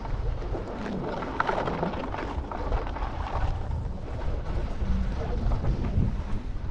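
Wind buffeting the microphone in a low, steady rumble, with skis scraping and hissing over packed, crusty snow while being towed at speed.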